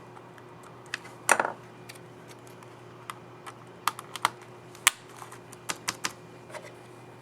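Keys on a Dell Latitude 3310 laptop keyboard being pressed, giving about a dozen irregular clicks, the loudest a longer, rattling click about a second and a half in.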